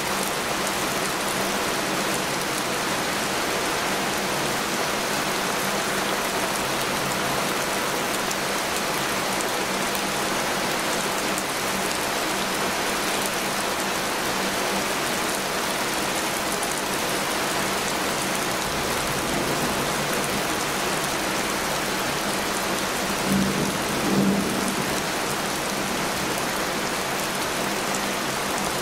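Heavy rain falling steadily, an even hiss of drops, with two brief low thumps close together about twenty-three seconds in.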